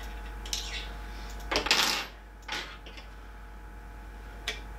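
Small metal parts clinking and scraping as hands fit parts onto a 3D printer's print-head arm: a few sharp clicks and a louder rattling scrape about a second and a half in, over a faint steady hum.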